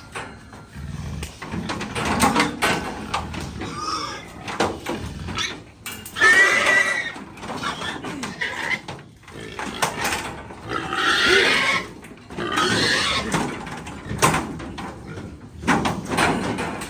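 Pigs squealing, a run of loud cries, the loudest about six seconds in and again near eleven seconds.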